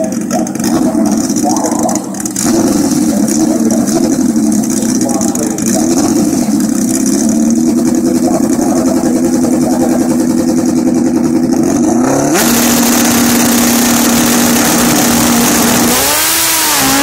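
Drag-racing motorcycle engines running on the starting line at a steady pitch. About twelve seconds in they are revved up and held at a higher, louder steady rpm. Near the end the bikes launch and the engine pitch sweeps up and down.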